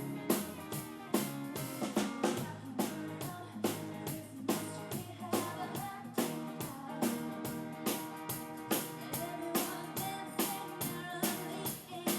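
Upbeat band music with a steady drum beat, guitar and singing.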